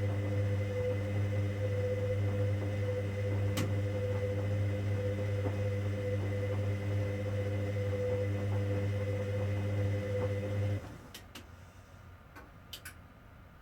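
Hoover Dynamic Next washing machine in the main wash of a 90 °C cotton cycle, running with a steady motor hum that stops abruptly about eleven seconds in. A few short clicks follow.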